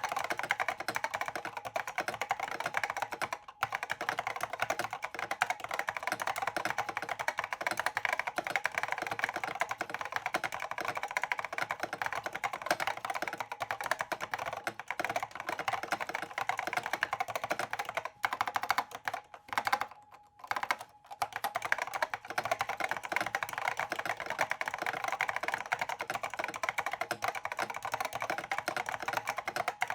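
Fast, continuous typing on a completely stock IBM Pingmaster with SKCC Green Alps switches: a dense stream of keystrokes with a few brief pauses past the middle.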